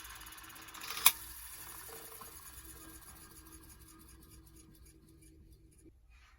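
Old electric motor coasting to a stop after being switched off: a whirring that fades out over several seconds, with one sharp click about a second in.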